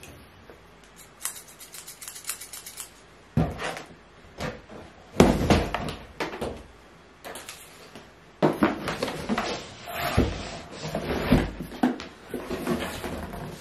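A cardboard shipping box being handled and opened by hand: a quick run of small clicks early on, then several bumps, scrapes and rustles of cardboard and packaging.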